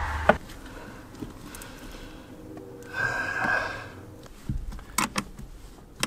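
Steel open-end wrench clicking against a lead-acid battery's terminal clamp and bolt as the clamp is tightened onto the post, with a sharp click just after the start and a run of clicks near the end. A short muffled noise comes about three seconds in.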